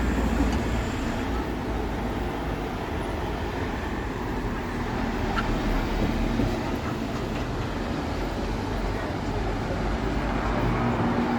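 Class 150 diesel multiple unit pulling out of the station, a steady engine and rail rumble. A steady low hum comes in near the end.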